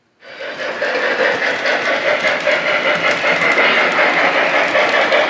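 Lionel O-scale model train running on the layout's track: a steady rolling rumble of wheels on rail that fades in and grows slightly louder as the train approaches.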